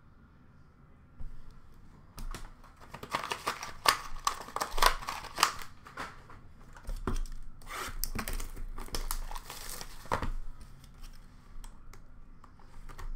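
Trading card pack wrappers being torn open and crinkled, with cards and packs clicking and sliding against each other as they are handled. The rustling starts about a second in and comes in two busy spells, easing off near the end.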